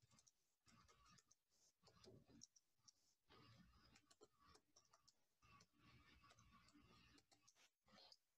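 Very faint computer keyboard typing: a quick, irregular run of keystroke clicks.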